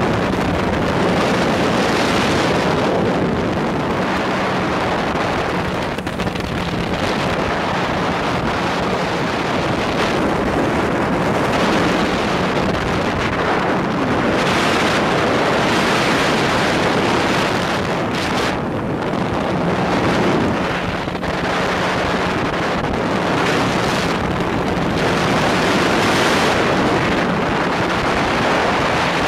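Speedboat engine droning steadily at speed under heavy wind buffeting on the microphone, the wind noise swelling and easing every few seconds.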